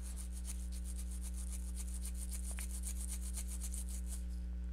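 Toothbrush bristles scrubbing a circuit board wet with flux remover in quick, even back-and-forth strokes, working off solder flux residue. A steady electrical hum sits underneath.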